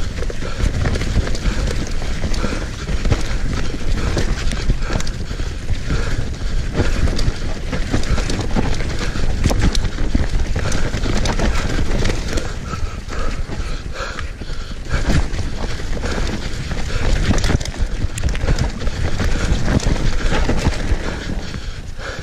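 Mountain bike riding fast down a dirt singletrack: steady tyre rumble over the trail with a dense, continuous clatter and knocking of the bike's frame and parts over bumps and roots.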